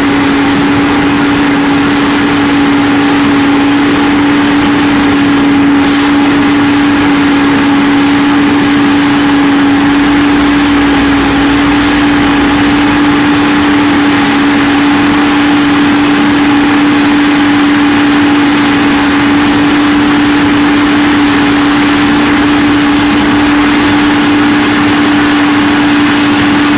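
Asphalt paving machinery at work: a wheeled asphalt feeder (material transfer vehicle) and paver with their diesel engines running steadily. The noise is loud and continuous, with a constant droning hum.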